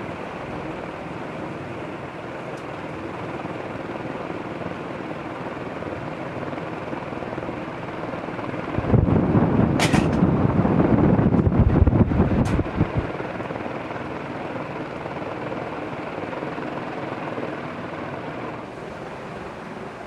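Crompton Greaves High Breeze 1200 mm four-blade metal ceiling fan running at speed, a steady rush of air from the blades. For about four seconds in the middle the rush grows louder and lower, with a couple of faint clicks.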